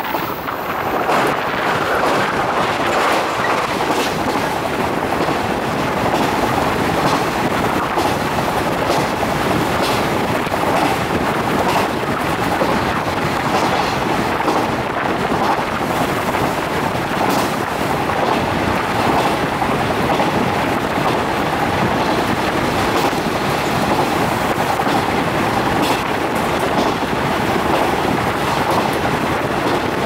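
Steady running noise of a JR 415-series electric multiple unit heard from inside the passenger car, with occasional sharp clicks from the wheels and track.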